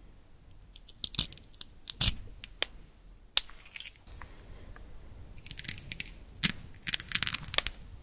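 Velcro hook-and-loop strips on wooden toy fruit and vegetables being pulled apart by hand: short crackling rips in several bursts, the longest run of them a couple of seconds before the end.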